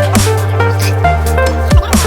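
Electronic dubstep-style background music: a heavy sustained bass line that shifts pitch about a second in, with deep kick-drum hits and hi-hats.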